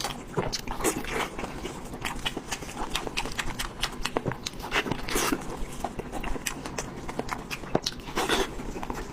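Close-miked eating: chewing and lip-smacking on meat, an irregular run of wet clicks and smacks with a few longer slurping smears.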